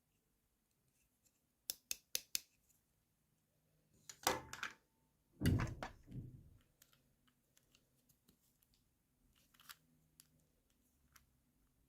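Handling and unpacking small plastic toys and their packaging: a quick run of sharp clicks, then two louder rustling, crinkling bursts, the second the loudest, followed by scattered light taps.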